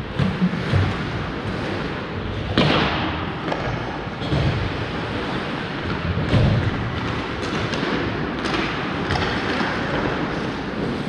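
Ice hockey play on a rink: scattered sudden thuds and knocks of pucks and sticks, the sharpest about two and a half seconds in, over a steady rushing background of skating and rink air.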